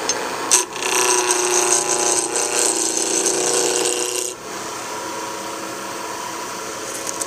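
Wood lathe running with a roughing gouge cutting the spinning square blank down toward a cylinder. A knock about half a second in, then a loud, rough cut for about three and a half seconds, after which the lathe runs on steadily without cutting.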